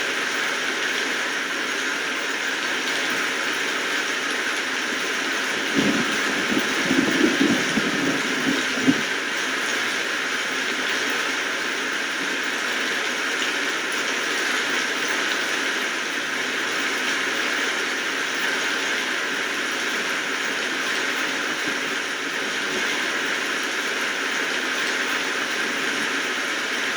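Steady rainfall, an even hiss of falling rain. A brief cluster of louder, lower knocks comes about six to nine seconds in.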